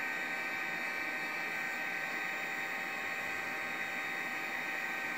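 Electric heat gun running steadily: an even hiss of blown air with a faint steady whine.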